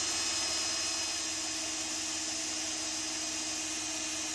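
Cordless drill running at a steady high speed, spinning a stepper motor's shaft to drive it as a generator, a steady whine of motor and gearing. The stepper is charging a capacitor through rectifiers.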